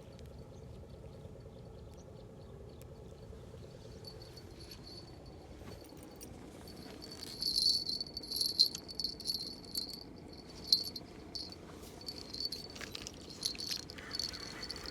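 Insect chirring in a high, thin pitch that comes and goes in uneven pulses, loudest in the second half.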